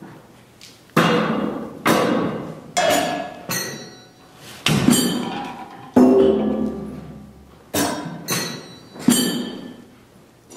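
Percussion ensemble striking assorted objects, one irregular hit about every second, each ringing out and fading before the next.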